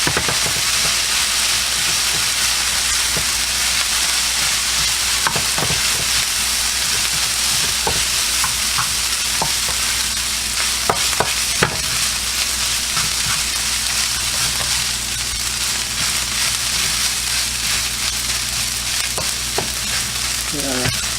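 Fried rice sizzling steadily in a hot pan while being stirred, with scattered light clicks and scrapes of the spatula against the pan.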